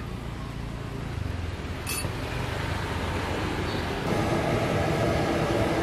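Steady roadside traffic noise that swells louder about four seconds in, with a single brief click about two seconds in.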